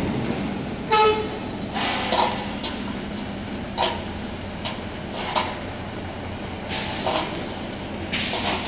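Outdoor yard background noise: a steady low hum with scattered sharp knocks, and a short horn-like toot about a second in.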